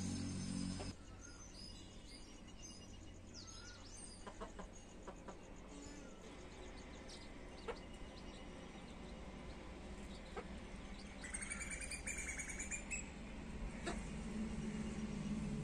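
Baby chicks cheeping faintly while they feed, with a few sharp clicks and one longer wavering high call about eleven seconds in. A low hum cuts off about a second in.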